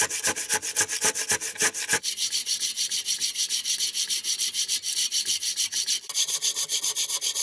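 Large crosscut saw cutting through a log, its teeth rasping through the wood in a fast, even rhythm of strokes. The sound changes abruptly about two seconds in and again near six seconds.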